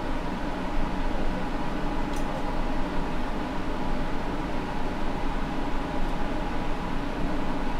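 Steady electric fan drone with a constant low hum and a faint whine, running without change; a faint click comes about two seconds in.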